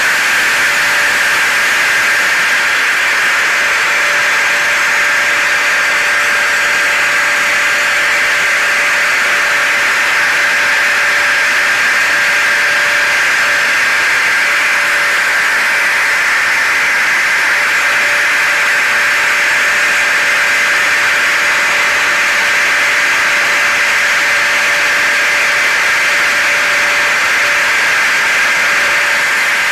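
Hair dryer and vacuum cleaner running together as a steady white-noise blend: an even rush of air with a constant motor whine.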